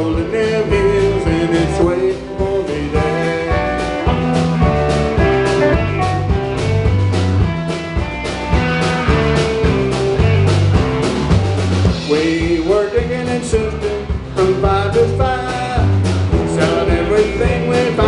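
Live country-rock band playing an instrumental break between sung verses: guitars over a steady beat with a bass line.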